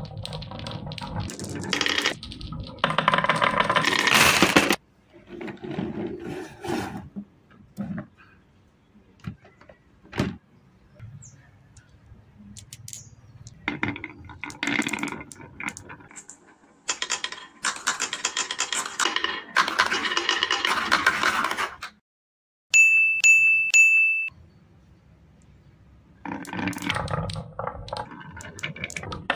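Marbles rolling and rattling down a winding groove carved into a wooden board, in several separate runs with short pauses, clicking against each other and the wood as they bunch up. About 23 seconds in, a steady high beep-like tone sounds for about a second and a half.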